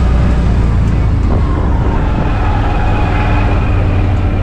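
Side-by-side UTV running along a dirt trail, heard from inside its open cab as a loud, steady low drone. A faint whine sits over it from about a second in.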